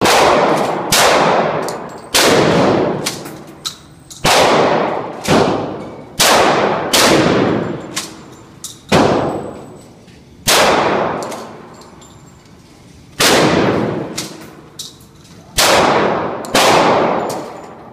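Glock 30SF .45 ACP pistol firing a dozen or so shots at an uneven pace, roughly a second apart with a longer pause near the middle. Each shot is followed by a long ringing echo.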